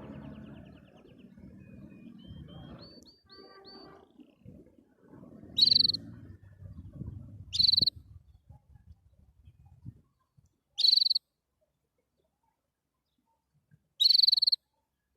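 Canary calling: a short thin trill in the first few seconds over a low background murmur, then four loud, short, harsh chirps repeated every two to three seconds.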